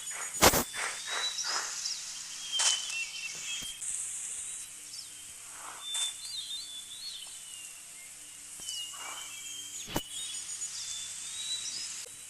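Outdoor ambience with repeated short bird chirps and whistles. It is broken by a rapid series of short calls in the first two seconds and by two sharp knocks, the loudest about half a second in and another near ten seconds.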